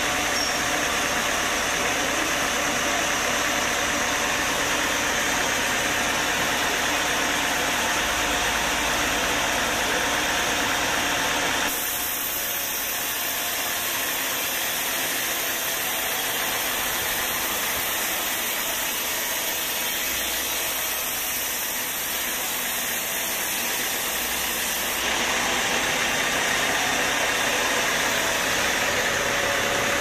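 Band sawmill running steadily, its blade cutting through a young teak beam. The noise drops a little and changes character about twelve seconds in, then returns near the end.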